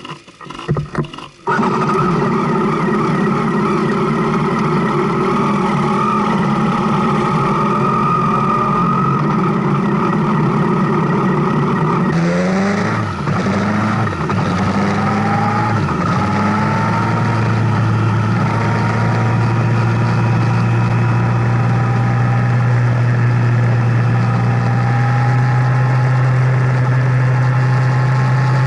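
Motorcycle engine running steadily, with a few knocks in the first second and a half; about halfway through the engine pitch rises and falls a few times, as with throttle changes, then holds steady.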